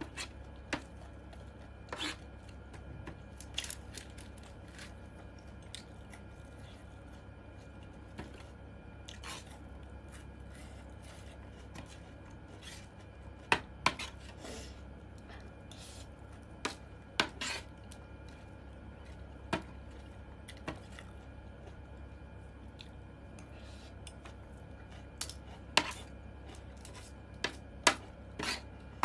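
Scattered sharp clinks and taps of cutlery against a plate or bowl while a meal is eaten, some much louder than others, over a steady low hum.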